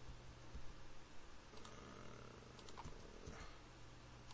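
A handful of computer keyboard key presses, sparse and clustered around the middle, over a faint steady low hum.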